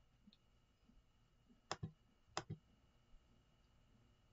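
Two sharp clicks about two-thirds of a second apart, each a quick double stroke: a computer mouse button being pressed and released. Underneath is faint room tone with a steady high whine.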